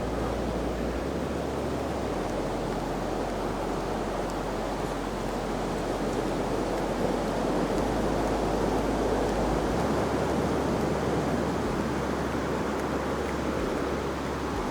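Ocean surf washing onto the beach in a steady rush, swelling a little about halfway through, with low wind rumble on the microphone.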